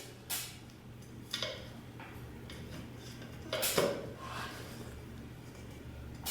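A few light clinks and knocks, the loudest about two thirds of the way in, as a ceiling fan's cover is fitted over its bolt heads and twisted to lock on.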